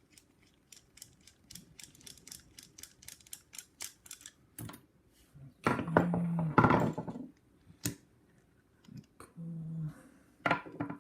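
Phillips screwdriver working the screw on an ABUS 72/40 padlock to take it apart: a run of quick small clicks, about four or five a second. These are followed by louder knocks and clatter of the lock and parts being handled, around the middle and near the end.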